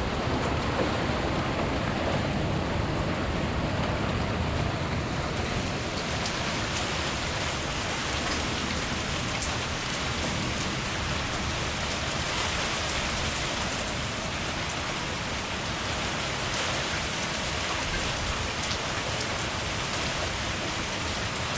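Heavy thunderstorm rain pouring down in a steady downpour, with a few sharp ticks of drops striking close by.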